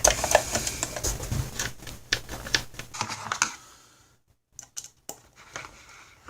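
Rapid clicking and tapping of plastic parts being handled and fitted together as a kitchen food chopper is reassembled. The clicks thin out about three and a half seconds in, then a few separate clicks follow.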